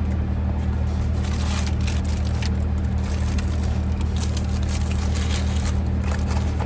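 Steady low hum of a car idling, heard from inside the cabin, with light rustling and small clicks of fast-food packaging being handled.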